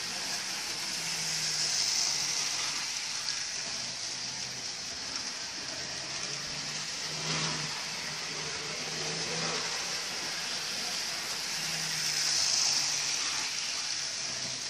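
Model freight train running round the track, a steady whirr of its small electric motor and wheels that swells twice as it passes close, about two seconds in and again near the end. It is running without derailing now that its freight cars have been swapped around.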